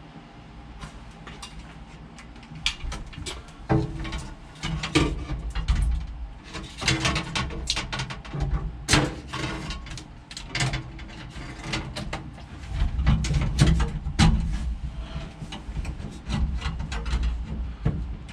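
Irregular clicks, knocks and scrapes of metal parts being handled and set into place while fitting an air shifter, over a low rumble; they pick up from about two and a half seconds in.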